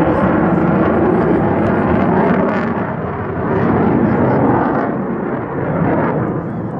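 F-16 fighter jet's engine roar from the aircraft in flight at a distance: a steady, dense rumble that swells and eases a little.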